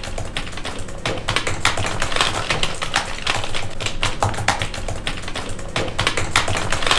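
Typing on a computer keyboard: a fast, dense run of key clicks.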